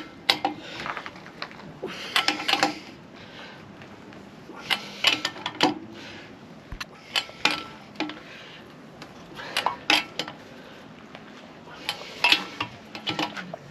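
Steel socket wheel brace clinking on a caravan's wheel nuts as they are tightened by hand one after another: about six bursts of sharp metallic clicks, one every two to three seconds.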